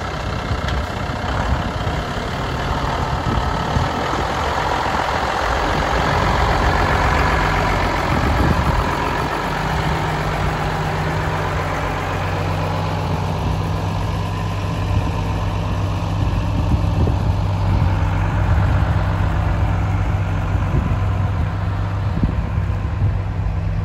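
Diesel engine of a Mercedes-Benz Unimog drilling-rig truck running at low revs as it drives slowly onto a grass plot. A steady low engine note throughout, becoming more even about halfway through.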